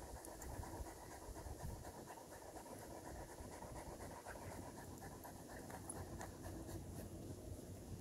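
A dog panting steadily and faintly, with a few soft clicks.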